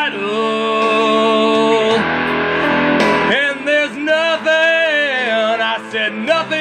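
A man singing a rough, gritty hard-rock/blues vocal over guitar accompaniment, holding long, wavering notes.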